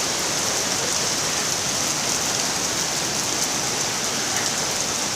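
Heavy rain pouring down steadily: an even, dense hiss.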